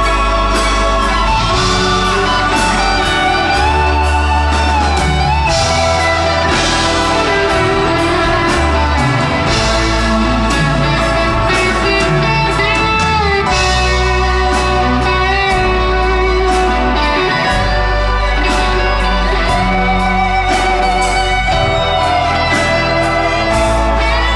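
Live rock band playing, with an electric guitar carrying a lead line of bent, wavering notes over bass and a steady drum beat.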